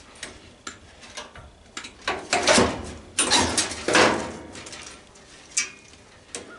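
Sheet-metal stove parts being handled: a run of sharp clicks and knocks, with three louder scraping clatters in the middle.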